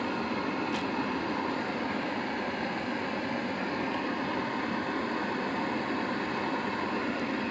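Handheld flame gun burning with a steady hiss, a faint click about a second in.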